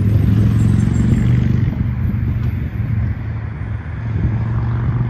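A car engine idling steadily nearby with a low, even hum, loudest in the first couple of seconds and easing a little after.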